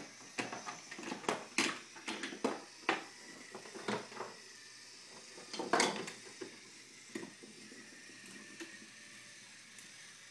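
Wooden toy trains and track pieces clacking and knocking together as they are handled: irregular sharp knocks through the first several seconds, the loudest about six seconds in, then only a few faint clicks.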